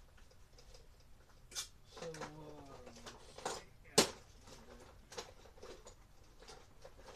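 Clicks and knocks of hard items being handled and packed into a case, the loudest a sharp knock about four seconds in, with a brief low hum of a voice around two seconds in.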